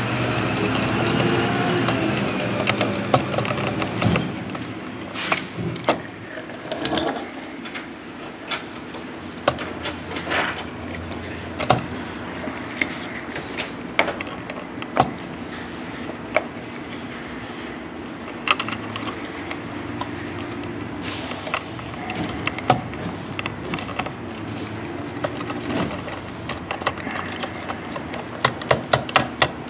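Small clicks, clacks and taps of a diecast toy rear-load garbage truck and its plastic trash cart being handled, the cart tipped against the rear hopper and set down, with a quick run of clicks near the end. A steady low hum runs underneath, and a pitched sound fades out over the first few seconds.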